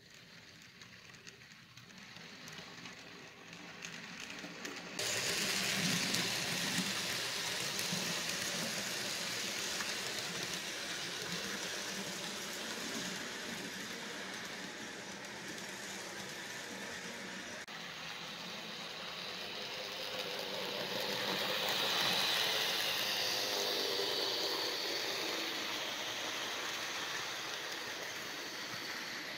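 Model train running along the layout's track: a steady whirring rattle of the small motor and the wheels on the rails. It fades in over the first few seconds, gets suddenly louder about five seconds in, and swells briefly later on.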